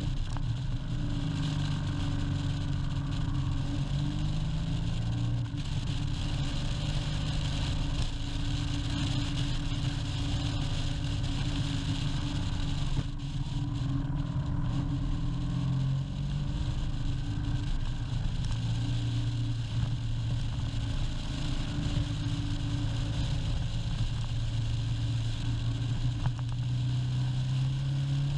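Motorcycle engine running under way on a winding road, its note stepping up and down several times with throttle and gear changes, over steady wind and road noise.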